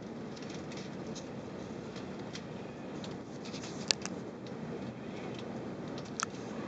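Steady airliner cabin noise aboard an Airbus A380 in climb, an even rumble and hiss. A few small clicks sound over it, the sharpest about four seconds in.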